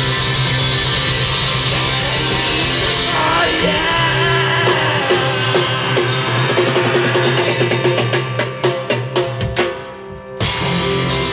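Live rock band playing: electric guitars, bass and drum kit with a singer. Near the end the drums break into rapid hits, the music drops out briefly, and one last loud hit closes the song.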